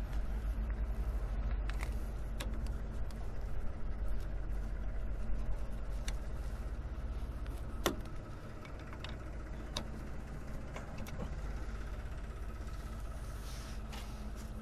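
Engine idling with a steady low hum. Sharp metal clicks come now and then, the loudest about eight seconds in, as hydraulic hose couplers and fittings are handled and pushed onto the tractor's valve block.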